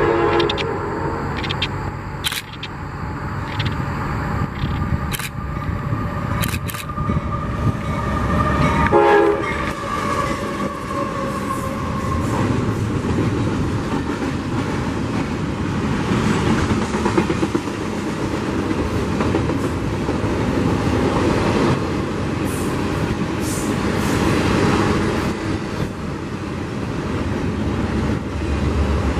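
CSX freight train passing close by, with a steady rumble of wheels on rail and scattered sharp clicks. Its horn sounds at the start and gives another short blast about nine seconds in.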